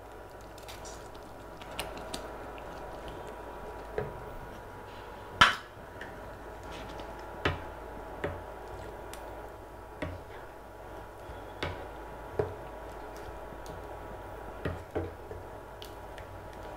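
Wooden spatula stirring a thick potato-and-pea gravy in a nonstick kadai, knocking against the pan now and then, sharpest about five seconds in. A faint steady hum runs underneath.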